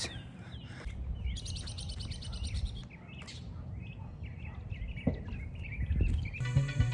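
Birds chirping and calling over a low background rumble. Background music starts near the end.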